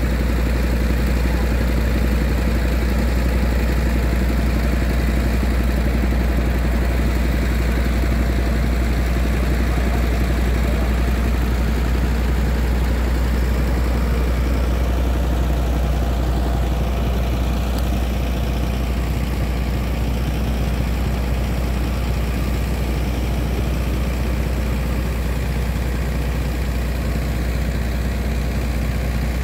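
An engine running steadily with a deep, even drone, most likely the motor driving the pump that draws water out of the shrimp pond through its large pipe.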